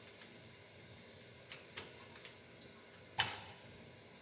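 A screwdriver prying a milled 8670 steel knife blank loose from its milling fixture: a few light metal ticks, then one sharp metallic clink with a short ring about three seconds in.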